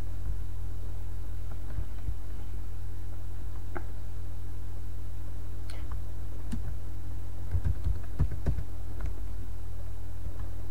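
Keystrokes on a computer keyboard typing a search: a few separate clicks, then a quick run of taps about three quarters of the way through, over a steady low hum.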